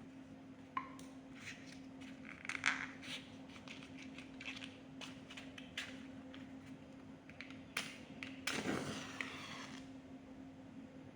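Irregular clicks, taps and scrapes of small hard objects being handled, over a steady low hum; a longer rustling scrape comes about eight and a half seconds in.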